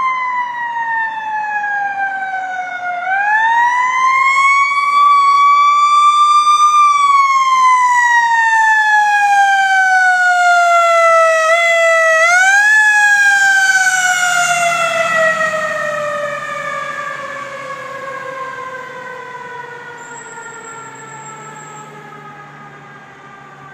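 Fire engine siren wailing, its pitch climbing and falling slowly and winding back up twice. In the second half it slides down in one long fall and fades as the engine passes and draws away.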